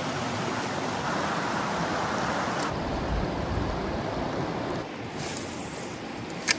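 Steady rush of water from a river rapid, with a sharp click near the end.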